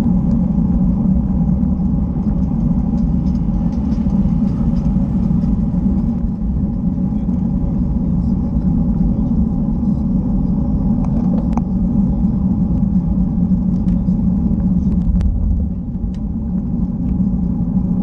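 Steady low rumble of wind and road noise on a camera riding on a moving road bike, with a few faint ticks.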